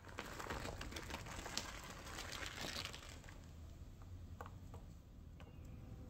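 Dense crinkling for about three seconds, then a few scattered light ticks, as a bag of frozen mozzarella is handled and the cheese is crumbled by hand onto sauced pizza dough.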